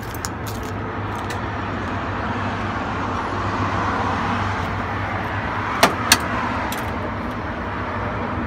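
Road traffic going past outside: a car's passing noise swelling and easing off over a low steady hum, with two sharp clicks close together about six seconds in.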